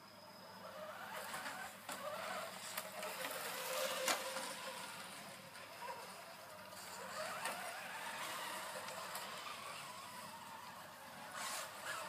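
Electric motor and gears of a vintage Tamiya radio-controlled Toyota Celica Gr.B rally car whining as it drives over grass, the pitch rising and falling with the throttle. There is a sharp click about four seconds in and a few more near the end.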